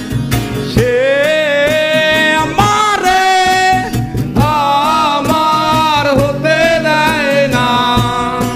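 A man singing a Bengali song in long held notes with vibrato, accompanied by a strummed acoustic guitar and a harmonium.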